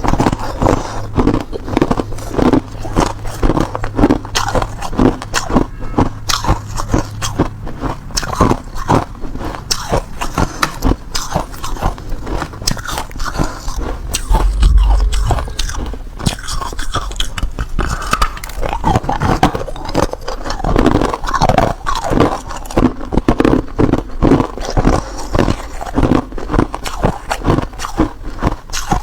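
Hard ice being bitten and chewed close to the microphone: loud crunches in quick, uneven succession, with a low bump about halfway through.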